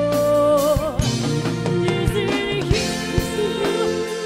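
A live pop band playing behind singing, with drum kit, electric guitar and keyboards. A sung note is held and ends in vibrato about a second in, over a steady drum beat.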